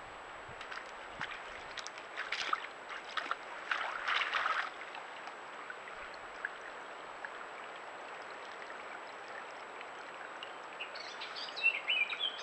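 A deer sloshing in a shallow muddy wallow as it settles into the water, with splashes about two seconds in and again around four seconds in, over a steady hiss. A bird chirps a few times near the end.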